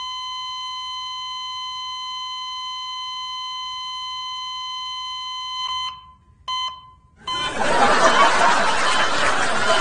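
A steady electronic alarm-like beep tone held for about six seconds, then cut off, sounding again briefly once. About seven seconds in, a louder rush of noise takes over.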